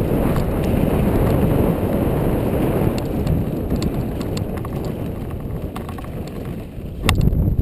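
Downhill mountain bike riding fast over a dry dirt trail: a continuous rumble of tyres on dirt, with scattered clicks and rattles from the bike. A louder clatter comes near the end, as from a bump.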